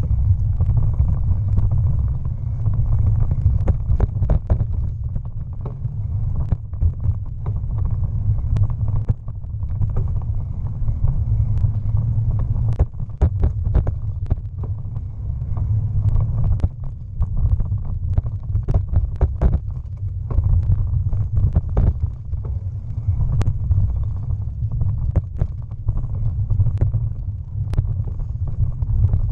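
Bicycle being ridden over a rough towpath surface: a steady low rumble from the tyres and the shaking bike, with frequent irregular sharp clicks and rattles as it jolts over bumps.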